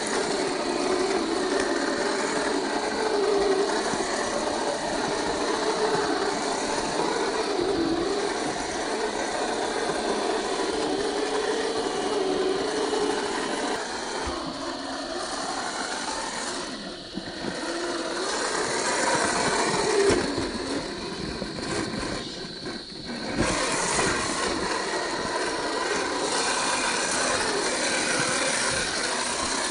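Electric motor and steel-geared drivetrain of a 1/10-scale RC rock crawler whining as it drives, the pitch wavering up and down with the throttle. It eases off briefly a couple of times past the middle.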